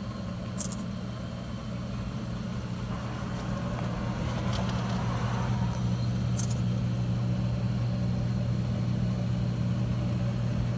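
Steady low electrical hum from the equipment inside a railroad crossing relay cabinet, growing louder over the first few seconds, with a few faint clicks.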